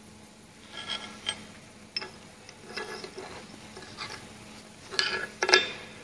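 Small steel parts being handled and set down on a steel workbench: a series of short, ringing metallic clinks and knocks, the loudest pair about five seconds in.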